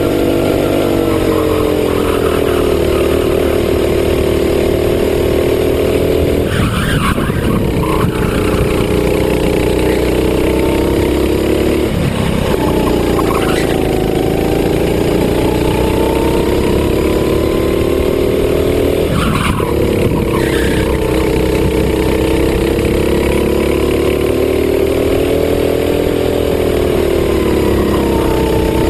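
Racing kart engine at close range, running hard down the straights. Its note drops four times as the driver lifts off into corners, then climbs again on the throttle out of each one.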